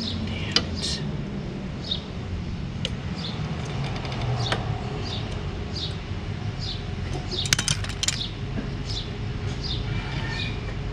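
Sharp metal clicks from hands and tools working a stubborn spring clamp off a push mower's fuel line at the carburetor, with a cluster of clicks about seven and a half seconds in. A bird chirps over and over in the background over a steady low hum.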